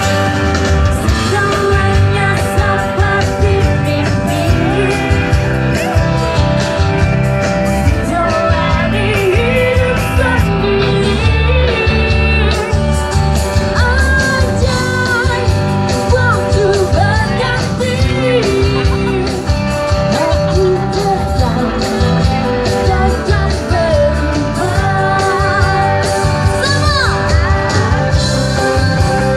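Live band playing a pop-rock song: a singer over guitar and drums, the lead vocal coming in several seconds in.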